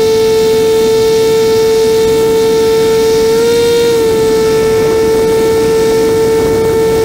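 Magni M24 gyroplane's engine and pusher propeller running steadily in flight, with a strong droning tone over a rush of wind. The pitch rises slightly for a moment about three and a half seconds in.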